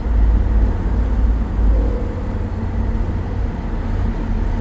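Car ferry's engines running with a deep, steady rumble as the ship pulls away from the dock.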